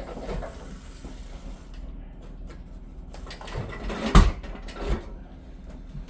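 A heavy van tool box being manoeuvred by hand, with quiet handling noise and three knocks as it bumps against things, the loudest about four seconds in.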